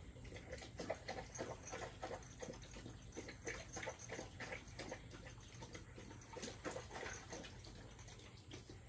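Young Kangal dog lapping water from a bucket, a quick rhythmic run of wet laps at about three a second that stops near the end.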